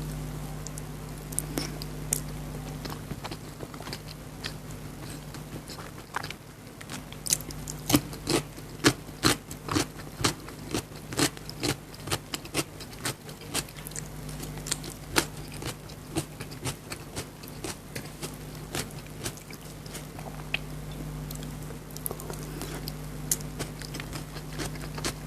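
Close-miked chewing and lip-smacking while eating chicken biryani: a long run of sharp, irregular mouth clicks, thickest through the middle, over a steady low hum.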